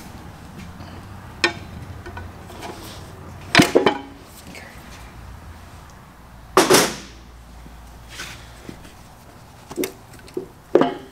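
Scattered metal knocks and clanks, loudest at about a third and two-thirds of the way through, with smaller ones near the end, as the cylinder head of a Jeep 4.0 inline-six is worked loose with tools and lifted off the block.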